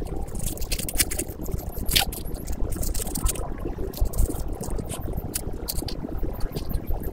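Instant noodles cooking in a pot of water at a rolling boil: a steady bubbling rumble with scattered crackles and pops.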